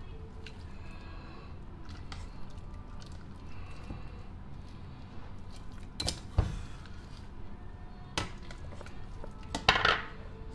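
A metal ladle clinking and scraping against a stainless steel pot and a ceramic serving bowl as cooked prawns and soup are ladled out. There are a few sharp clinks about six and eight seconds in, and a louder clatter near the end.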